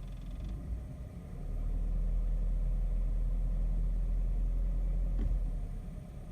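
Volkswagen Polo 6R engine idling with a low, steady rumble that swells about a second and a half in and drops back near the end, with one short click about five seconds in. At idle this engine makes a clattering (kata-kata) noise that the owner says is not trim vibration and is gone once the car is moving.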